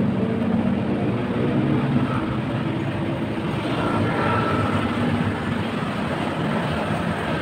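Steady road traffic rumble: a continuous drone of engines and tyres with no breaks.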